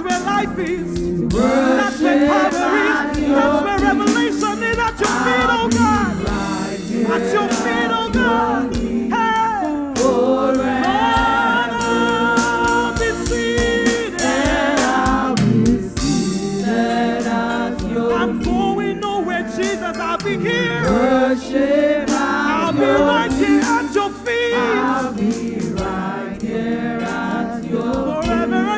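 Gospel worship song: several voices singing together over musical accompaniment, without a break.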